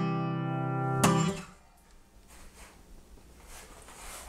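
Guitar ending a song: a chord ringing, then one last strummed chord about a second in that dies away within half a second, leaving faint background noise.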